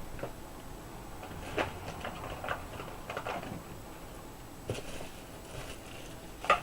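Light, scattered clicks and small scrapes of hands handling laptop parts and tools, a few separate taps about a second apart.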